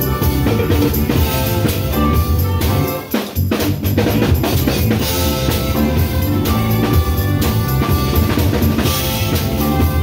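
Live band music with timbales and cymbals struck close by, over bass and other instruments. The music drops out briefly about three seconds in, then comes back in.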